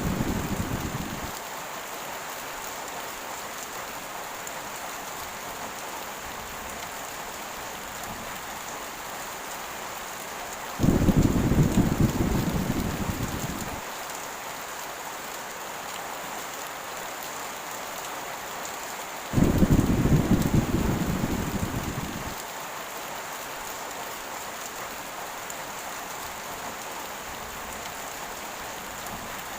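Heavy rain falling in a steady hiss, with low thunder rumbles that start suddenly about 11 and 19 seconds in and each die away over about three seconds; another rumble fades out in the first second or so.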